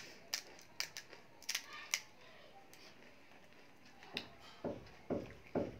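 Crisp crackles of a hollow fried pani puri shell being cracked open and handled, a few sharp clicks in the first two seconds. Near the end come about four softer, duller squishing strokes, about two a second, as the filling is pressed in.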